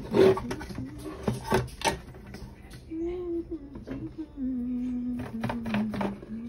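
Clicks and knocks of a circuit board being handled and set into its plastic housing on a wooden bench, the loudest about a quarter of a second in. Between them, a man hums low notes that shift in pitch.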